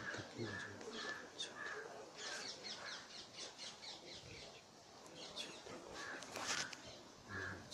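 Faint birdsong: a run of short calls repeated about twice a second, with quick high chirps over them.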